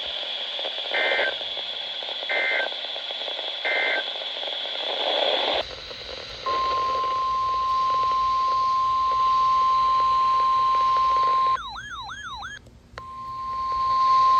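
Weather radio hiss with three short two-pitch data bursts, the Emergency Alert System end-of-message code. After a cut, the NOAA Weather Radio 1050 Hz warning alert tone sounds steadily for about five seconds, is broken by a brief warbling siren-like sweep, and comes back near the end.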